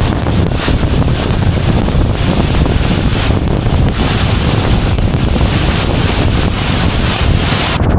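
Close-up roar of a big waterfall with its spray and wind blasting the microphone, a loud steady rumble and hiss. Near the end the hiss drops away abruptly while the low rumble goes on.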